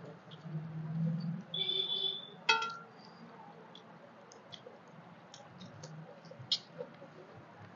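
Fingers and bangles clicking and scraping against steel plates while rice is mixed and eaten by hand, with one sharp metallic clink that rings briefly about two and a half seconds in.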